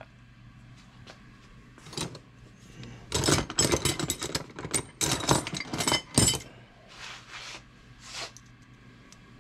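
Metal tools and parts clinking and clattering as they are handled: a single knock about two seconds in, then a dense clatter of about three seconds ending on a sharp hit, and a few softer knocks near the end.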